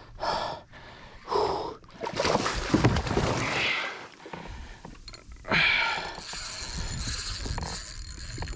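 Hooked snook thrashing and splashing at the surface beside a kayak, mixed with the angler's sharp breaths and gasps as he fights the fish.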